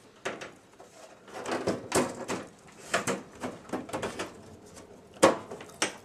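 Computer case side panel being fitted back on and slid shut: scattered scrapes and knocks of the metal panel against the case, with a sharp click a little past five seconds in.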